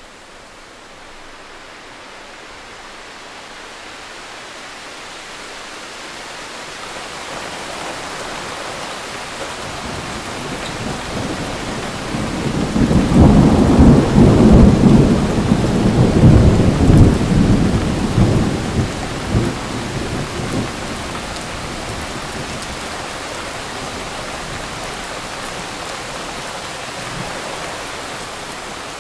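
Thunderstorm: steady rain growing gradually louder, then a long, loud rumble of thunder about twelve seconds in that lasts several seconds and fades back into the rain.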